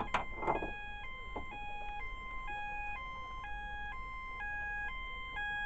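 Vector Platform sounder base under a Series 65 smoke detector sounding its fire alarm, set off by real smoke. It gives a two-tone alternating tone that switches between a higher and a lower pitch about every half second, with a few handling knocks near the start.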